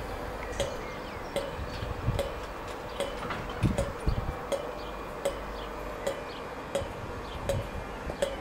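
Slow-moving passenger train at a platform with a low rumble and a regular sharp ticking, about one tick every three-quarters of a second.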